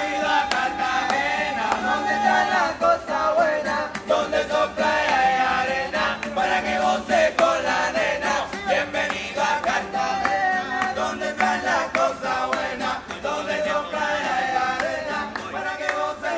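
A group of men singing and chanting an improvised rap together, with guitar accompaniment and a steady percussive beat.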